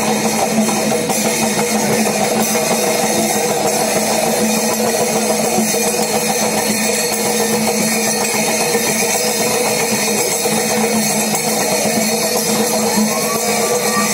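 Loud, dense temple-festival percussion music mixed with crowd noise, unbroken.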